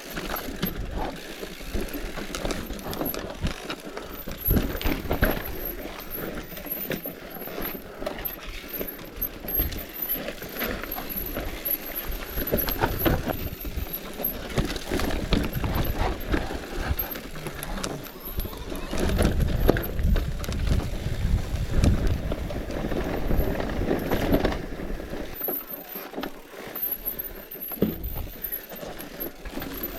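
Bicycle rattling and clattering as it rides over rough ground, with irregular knocks throughout. Wind rumbles on the microphone, heaviest a little past the middle.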